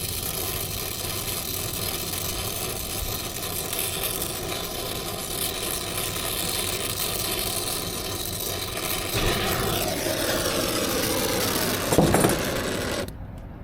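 Brazing torch flame running with a steady hissing rush while it heats the brazed refrigerant line joints on a compressor to sweat them off. A sharp knock sounds near the end, and the flame's hiss then cuts off suddenly.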